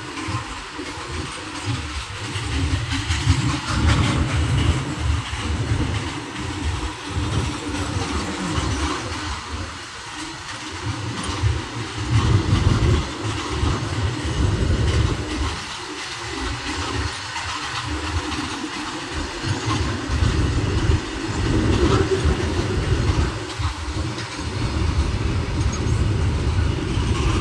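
Loaded open coal wagons of a freight train rolling past close by: a continuous rumble with wheel clatter over the rails, swelling and easing every few seconds as the wagons go by.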